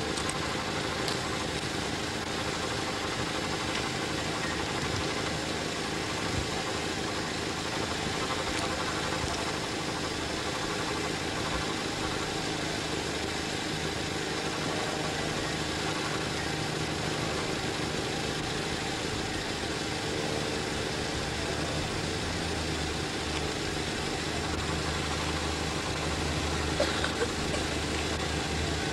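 An engine running steadily at an even pitch, a constant drone throughout.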